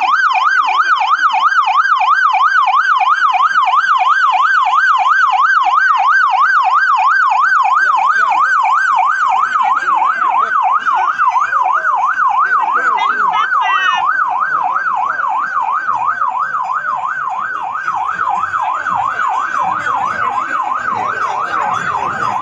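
Police escort vehicle's electronic siren sounding a fast up-and-down yelp, steady throughout and easing off slightly toward the end, over a murmuring street crowd.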